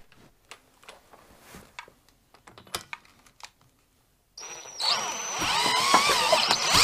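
A few faint handling clicks, then about four and a half seconds in a cordless drill starts up and spins a Kohler K321 single-cylinder engine by its crankshaft nut, its whine wavering in pitch as the crank turns. The engine is turned in its normal direction, so the automatic compression release holds compression off and the gauge reads next to nothing.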